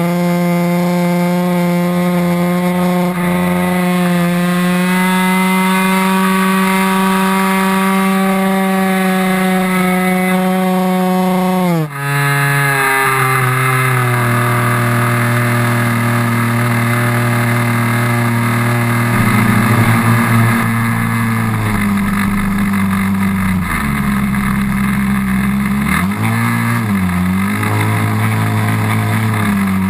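The small engine of a 40-size R/C trainer plane running at high speed, its pitch creeping slightly higher, then throttled back sharply about twelve seconds in to a lower steady speed. Near the end the speed dips and picks up again twice.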